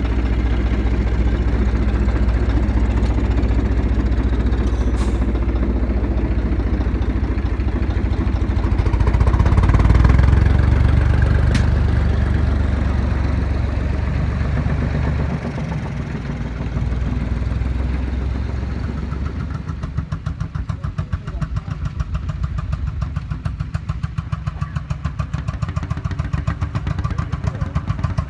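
A vintage tractor engine running, swelling louder about a third of the way through. Later it gives way to a Lanz Bulldog's single-cylinder engine chugging with an even, steady beat.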